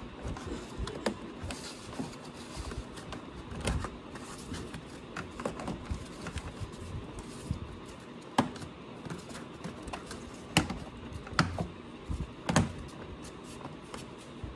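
A plastic engine-compartment cover panel being handled and pressed into place by hand: scattered light clicks and knocks, with a few sharper snaps in the second half.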